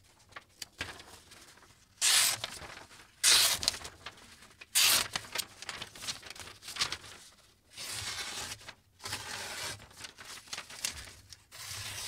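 Chef's knife slicing through a sheet of paper in a series of short cuts, the three loudest about two, three and five seconds in, with paper rustling between them. This is a paper-cutting test of the freshly sharpened edge.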